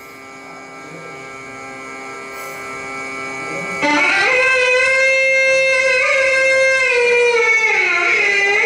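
Indian instrumental music: a steady held tone that swells in, then about four seconds in a louder melody of long held notes that slide between pitches.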